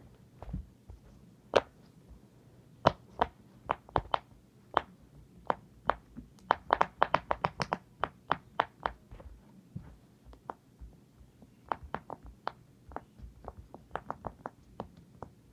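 Silicone pop-it fidget toy bubbles being pressed one after another, a string of short, sharp pops at an irregular pace. The pops come in a fast flurry around the middle and again near the end.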